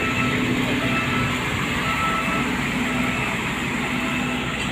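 Steady engine drone mixed with street traffic noise, with no distinct events standing out.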